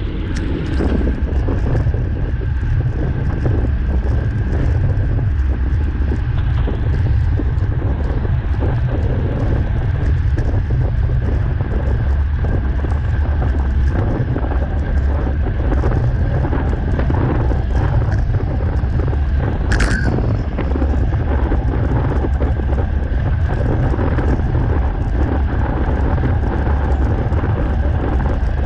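Wind buffeting the microphone of a handlebar-mounted camera on a moving road bike, a steady low rumble, with one brief sharp click about twenty seconds in.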